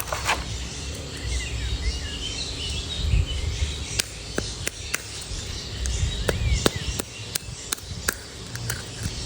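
Outdoor ambience: small birds chirping over a steady low rumble, with a dozen or so sharp clicks scattered through it.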